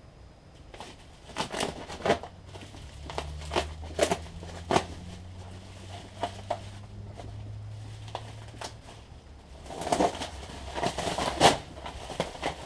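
Cardboard box and packaging being handled and opened by hand: crinkling, tearing and scattered knocks, busiest near the end. A low steady hum runs under the middle stretch.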